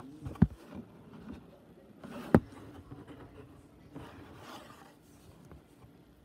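Hands and yarn rubbing and scraping against a cardboard loom as yarn is woven through the warp threads, with two sharp knocks, the louder about two seconds in.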